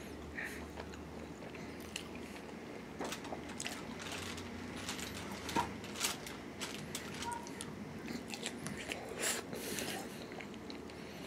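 Close-up eating of barbecue chicken wings: a person biting and chewing, with irregular wet smacks and small crunches.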